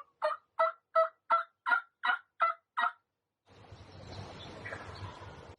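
Hand-operated turkey call sounding a run of eight evenly spaced hen-turkey yelps, about three a second, used to draw in a gobbler. A soft steady hiss follows.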